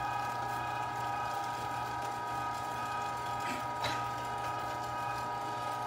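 A 1 HP Carnivore electric meat grinder running under load, grinding raw meat, with a steady motor hum and whine. A single short knock sounds about four seconds in.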